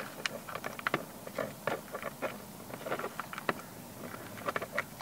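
Small, irregular plastic clicks and taps as a switch blank is pressed and worked by hand into a plastic dash switch panel.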